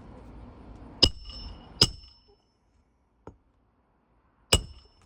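Hammer blows driving roofing nails into an asphalt shingle roof, metal striking metal with a short ring: two blows about a second in, a faint tap in the middle, and a third blow near the end.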